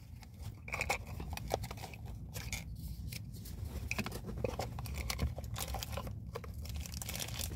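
Hands handling a clear plastic packaging cube and paper inserts: soft rustling and crinkling with scattered light clicks and taps, over a low steady hum.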